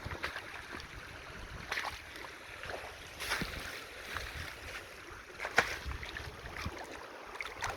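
Boots crunching and sloshing on icy marsh clumps and shallow creek water. The steps come as a few irregular sharp crunches, loudest about five and a half seconds in, over wind rumbling on the microphone.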